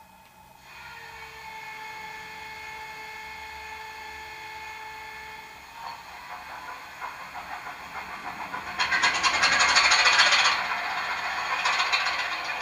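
Sound decoder of a Bachmann Class 25 00-gauge model diesel locomotive playing its engine start-up through the model's small speaker. A steady whining tone runs for about five seconds, then a rising clattering swells into a loud burst of engine noise about nine seconds in, which eases back to a steady running sound.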